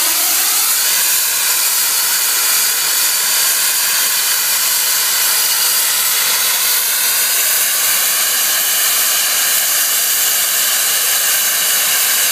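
SECR C Class steam locomotive's safety valves blowing off: a loud, steady hiss of steam venting, the sign that the boiler has reached full working pressure.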